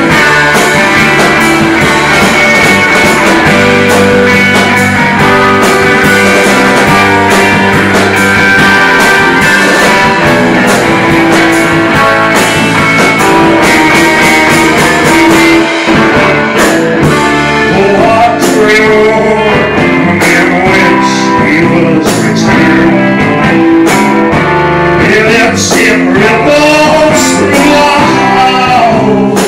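Live rock band playing electric guitar and drum kit, loud and continuous. A man's singing voice comes in over the band a little past halfway.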